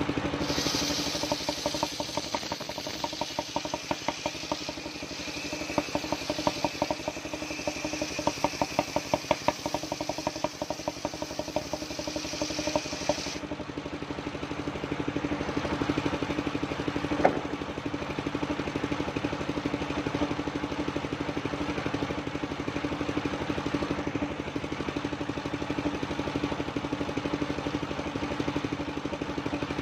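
Engine-driven circular sawmill running steadily; for about the first thirteen seconds its blade cuts through a coconut-wood log with a high hiss and a rapid clatter, which stop suddenly, leaving the engine and spinning blade running. One sharp knock comes a few seconds later.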